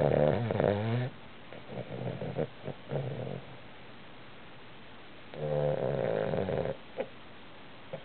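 A Boston Terrier snoring in its sleep: two loud, pitched snores, one at the start lasting about a second and another about five seconds in, with softer, broken breathing sounds between them.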